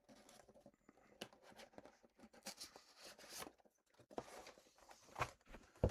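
Cardboard box of a brick set being opened by hand: faint scraping and rustling with scattered small clicks, busiest about halfway through.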